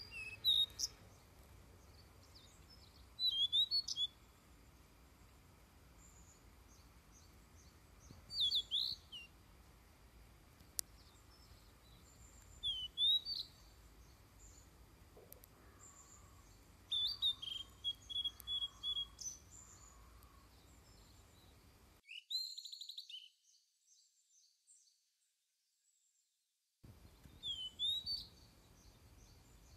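Blue-and-white flycatcher song: short, bright, gliding phrases every few seconds over faint steady background noise. About three-quarters of the way through, a different brief burst of calls is heard. The sound then cuts out for several seconds before the song resumes.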